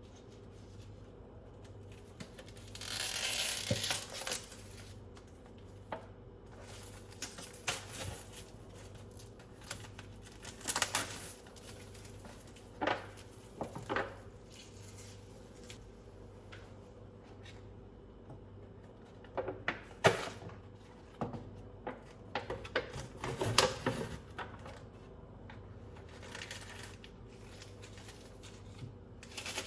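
Scattered small clicks, knocks and rustles of objects being handled, over a low steady hum.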